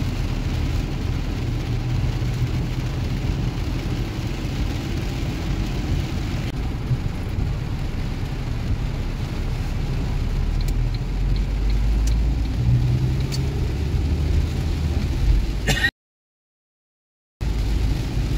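Inside a car driving through a heavy rainstorm: steady engine and road rumble under a hiss of rain and wet tyres, the engine pulling a little harder about ten seconds in. Near the end the sound cuts out completely for about a second and a half.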